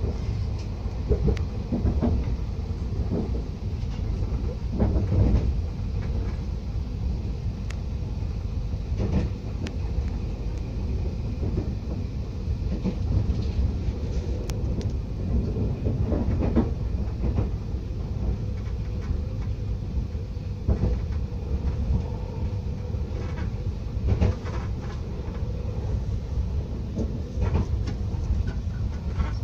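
A moving TER regional train heard from inside the carriage: a steady low rumble of wheels on rails, with clicks and knocks at irregular intervals.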